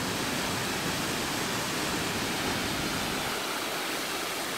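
Steady rushing hiss of Tews Falls, a tall waterfall, falling into its gorge. A low rumble under it drops away about three seconds in.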